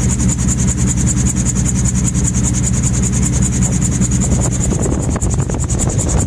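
Gyrocopter in flight with its engine throttled back to idle: a steady low engine drone under a fast, even high-pitched pulsing from the spinning rotor, about ten beats a second.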